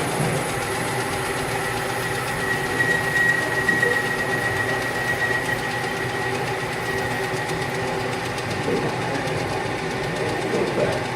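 Metal lathe running steadily while its tool takes a 10-thousandths facing cut across the end of the workpiece. A thin high whine comes in about two seconds in and fades away a few seconds later.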